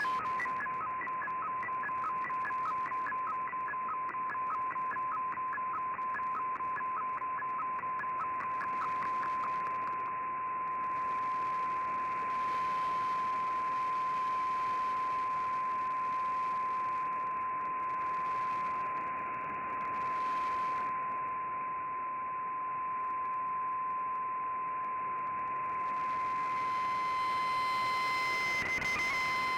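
Shortwave receiver audio of a digital-mode broadcast: a steady single tone over static hiss. For the first third it carries a quick, even run of higher beeps, and near the end a higher tone comes in and then steps down in pitch.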